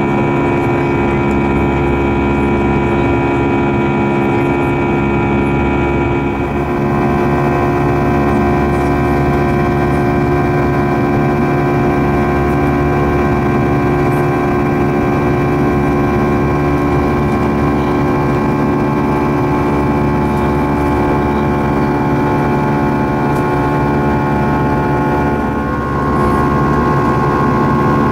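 Airbus A321's CFM56 turbofan engines in the climb after takeoff, heard from a window seat over the wing: a loud, steady drone with several whining tones, which shift slightly about six seconds in and again near the end.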